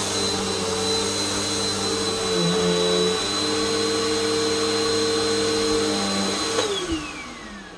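Vacuum cleaner motor running steadily with a high whine, then switched off about six and a half seconds in and winding down, its pitch falling away.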